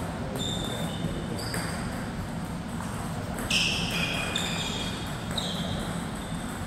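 Sneaker soles squeaking on a sports floor: several short, high squeaks, the loudest about three and a half seconds in, with a few light taps.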